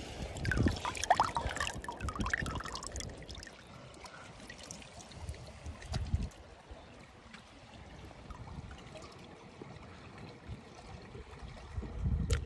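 A hand splashing and sloshing through shallow seawater, with trickling water, for the first few seconds, then quieter with two dull low thumps, one midway and one near the end.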